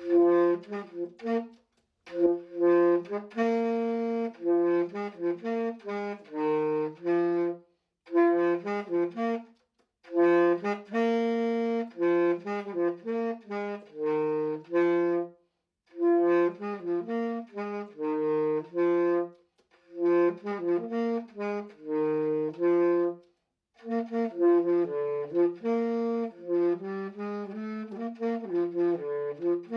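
Solo tenor saxophone playing a melody in short phrases with brief silent breaks between them, the same riff coming back several times, with no accompaniment.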